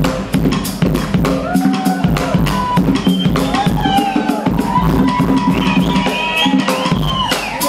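Drum kit played live in a drum solo: fast, dense strokes with the bass drum under them. Pitched tones glide up and down over the drumming.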